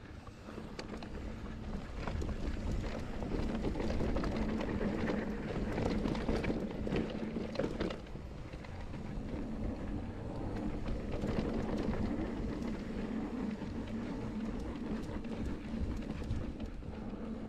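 Mountain bike running down a dirt trail: tyres rumbling over the ground, with many small clicks and rattles from the bike and wind on the action camera's microphone.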